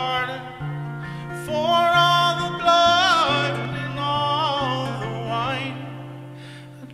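A man singing a slow melody with long, wavering vibrato notes, accompanied by picked notes on a semi-hollow electric guitar; the voice trails off near the end.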